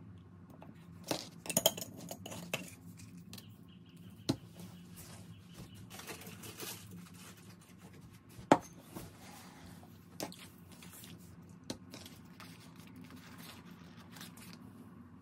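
Scattered clicks and knocks of small things handled on a tabletop: a glass jar and a small glass bowl set down, and metal tweezers tapping, with some paper rustling. The loudest knock comes about eight and a half seconds in, over a faint steady low hum.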